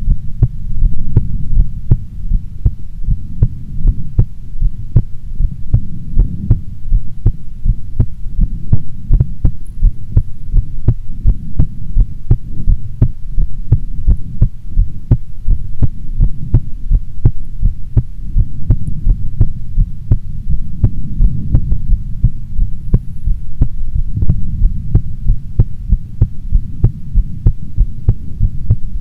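A woman's heartbeat, beating steadily and evenly as a continuous run of dull, deep thuds over a low hum.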